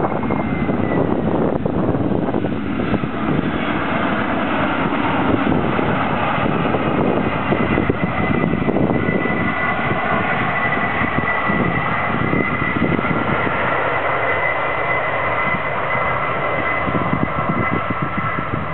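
Boeing 767-300 airliner's jet engines running as it rolls out on the runway after landing, a rumble with a high steady whine over it.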